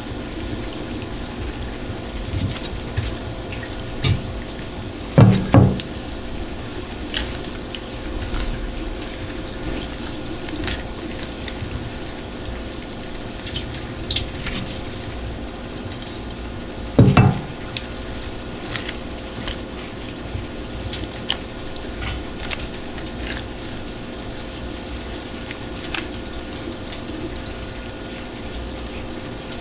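Wet squelching and sticky clicks as gloved hands pull the innards and liver out of a large anglerfish in a stainless-steel sink, with two louder thuds about five seconds and seventeen seconds in. A faint steady hum runs underneath.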